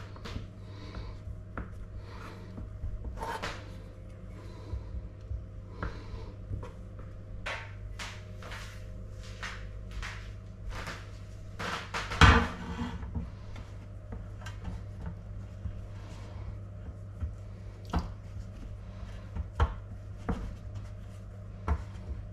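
Kitchen knife cutting pastry dough on a wooden board: a series of irregular taps and knocks as the blade meets the wood, with one much louder knock about twelve seconds in. Later, lighter clicks and taps as the dough strips are laid onto a baking tray, over a steady low hum.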